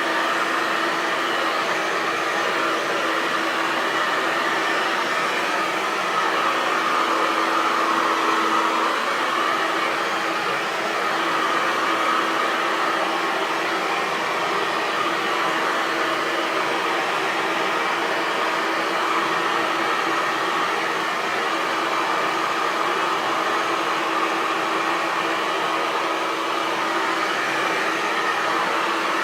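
Hair dryer running continuously: a steady rush of air with a constant motor hum.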